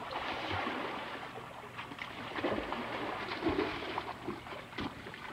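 Water splashing in a backyard swimming pool as a person falls backward into it, loudest over the first two seconds, then smaller splashes and sloshing as swimmers move about.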